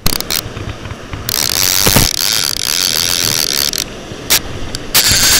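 Bait clicker on a Penn No. 77 Sea Hawk direct-drive reel ratcheting rapidly as line is pulled off the spool: a fish has taken the bait and is running. The buzz starts suddenly, comes in surges, and is loudest from about a second in to nearly four seconds and again near the end.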